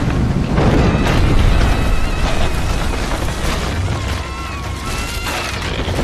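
Earthquake rumble from a film soundtrack: a deep, continuous shaking rumble with crashing debris as a building comes down. From about a second in, high wavering tones sound above it.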